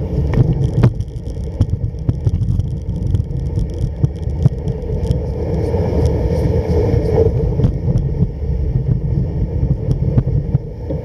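Home-made kick sled running over snow: a steady rumble from the runners, with scattered light clicks and knocks.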